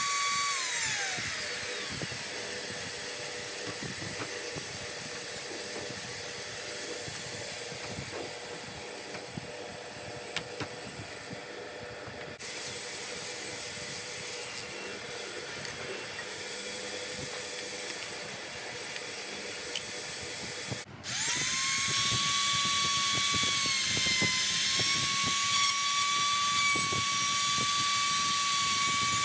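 Ronix compact trim router running at a steady high whine, then switched off and spinning down about a second in. A quieter stretch of steady background noise follows. About two-thirds of the way through the router starts up, its whine rising and settling into a steady high pitch as it runs on.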